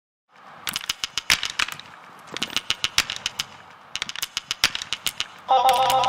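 Sharp crackling pops and clicks in three bursts over a faint hiss. Music with sustained tones comes in about five and a half seconds in.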